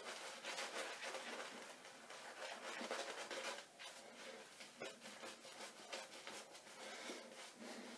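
Shaving brush working soap lather over a stubbled face and neck: faint, continuous wet swishing and fine crackling of the bristles and bubbles.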